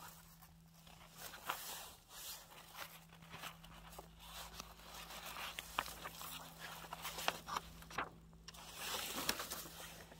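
Printed paper sheets being handled and shuffled, rustling and scraping, with short sharp clicks from time to time.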